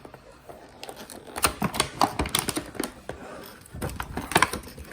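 Rapid, irregular clicking and clacking of small hard objects being handled, with a few louder knocks.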